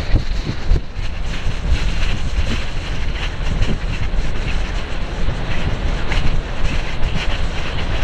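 Strong northwest wind buffeting the microphone: loud, gusty rumbling that rises and falls without a break.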